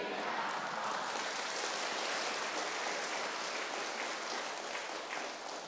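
A seated congregation applauding with steady, dense hand-clapping, which thins out near the end.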